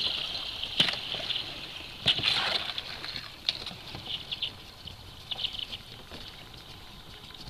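Thin river ice crackling and clinking as it is broken and pushed against a kayak's hull, with water sloshing. There are a few sharp cracks in the first three seconds, then softer clusters of small ticks.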